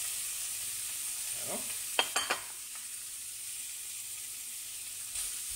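Raw minced meat and chopped onion sizzling steadily in a hot nonstick frying pan, the meat freshly added. A few sharp knocks about two seconds in.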